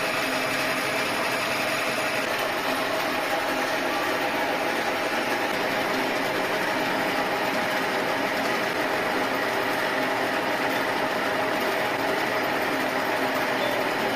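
A workshop machine running steadily, an even mechanical noise with a few constant tones and no change in speed.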